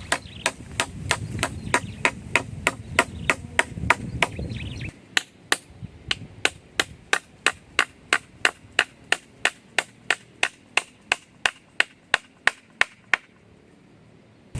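Rapid, evenly spaced chopping strikes on wood, about three to four a second, stopping shortly before the end.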